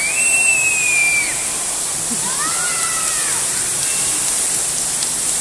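Tall fountain jet of water shooting up and falling back into its pool, a steady rushing hiss of spray and splash. Over it, a couple of high, drawn-out tones rise and fall, about a second each, near the start and midway.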